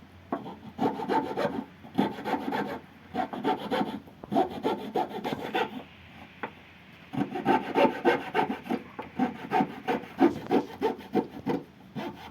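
Hand saw cutting through small wooden plugs in bouts of quick back-and-forth strokes, pausing briefly a few times, with a longer pause about halfway through.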